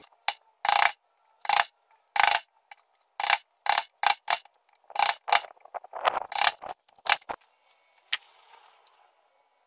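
Steel wood chisel scraping and paring the bottom of a bowtie mortise in raintree wood, about a dozen short strokes that stop about seven and a half seconds in.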